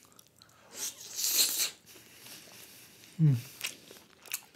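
Close-miked mukbang eating sounds: a long hissing mouth sound about a second in, a short falling 'mm' hum about three seconds in, then wet mouth clicks.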